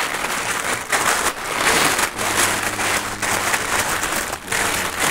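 Rustling and crinkling of wrapping, handled by hand while a small wrapped item is unwrapped, as a run of irregular crackles and scrapes.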